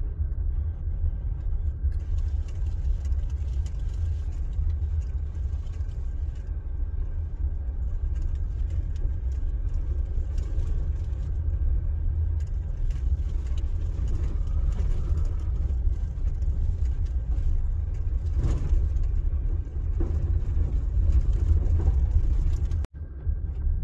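Steady low rumble of a vehicle driving slowly over a rough dirt road, engine and tyres together, with a few knocks and jolts from the bumps. The sound cuts out for an instant near the end.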